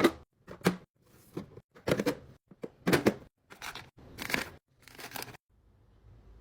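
Snack packages and plastic containers handled and set down during a fridge drawer restock: a series of about eight clacks and rustles, stopping about five and a half seconds in.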